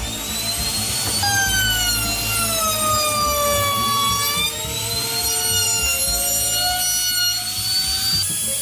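Electric power tool's motor whining, its pitch dipping and recovering several times, with short bursts of hiss at intervals.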